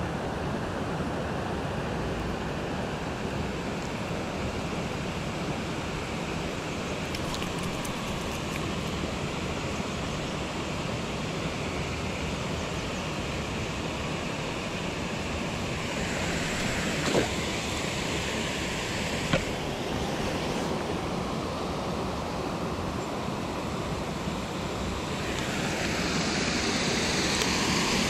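Steady rush of river water spilling over a stepped weir, growing louder near the end. Two small sharp clicks about two-thirds of the way through.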